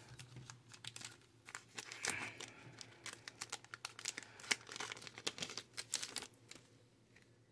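Plastic wrapper of a trading-card booster pack crinkling and tearing as it is opened and handled: a rapid run of faint crackles that stops shortly before the end.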